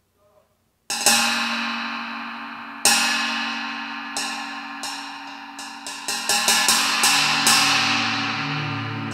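Percussion accompaniment on cymbals: a sudden crash about a second in, another around three seconds, then a quickening run of strikes between about four and seven and a half seconds, each left to ring. Low sustained tones come in near the end.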